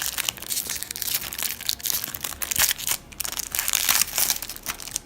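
Foil Yu-Gi-Oh booster pack wrappers crinkling and crumpling as packets are handled and opened: a dense, irregular run of crackles and rustles.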